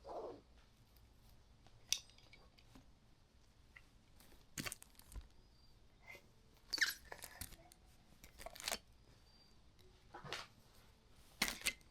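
Irregular small handling sounds: quiet clicks and rustles, broken a few times by short, louder crinkly scrapes, as of paper or objects being moved about.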